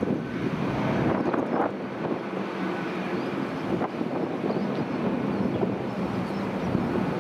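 Jet engines of an Airbus A319 on the runway, a steady rushing noise, with wind buffeting the microphone.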